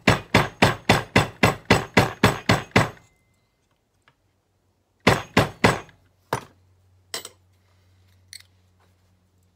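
Hammer tapping the centrifugal clutch inner of a Stihl TS350 cut-off saw onto its crankshaft, a stubborn tight fit. A fast run of sharp strikes, about four a second, for three seconds, then a pause and a few more strikes about five seconds in, followed by a few lighter knocks.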